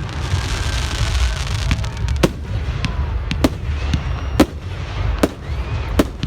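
Fireworks going off: a string of sharp bangs about once a second over a steady low rumble, with faint whistles gliding up and down.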